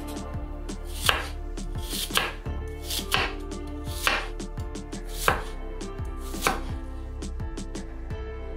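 A steel kitchen knife slicing a green apple on a wooden cutting board: about eight crisp knocks of the blade against the board, roughly a second apart. Soft background music with held tones plays underneath.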